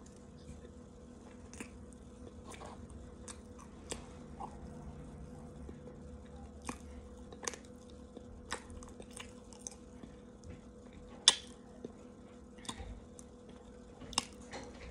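Raw cornstarch being eaten from a plastic tub with a plastic spoon: irregular sharp crunches as the spoon digs in and the powder is chewed, the loudest about eleven seconds in. A faint steady hum runs underneath.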